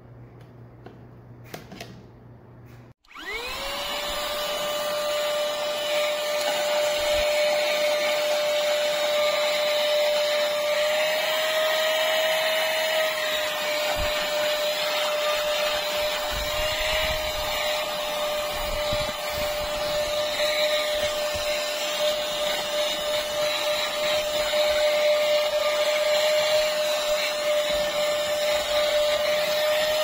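A few light handling clicks, then about three seconds in the Milunho cordless handheld vacuum cleaner is switched on: its motor spins up quickly to a steady high whine over a hiss of rushing air. It runs on steadily, its pitch shifting slightly as the nozzle works over a fabric car seat.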